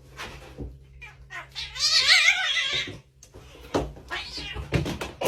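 A cat yowling: one long, high, wavering cry about two seconds in, followed by a few short knocks.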